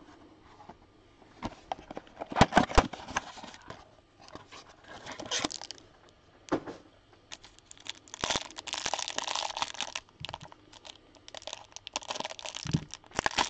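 Trading-card packaging being torn open and crinkled, in irregular rustling bursts, with a cluster of sharp clicks about two and a half seconds in.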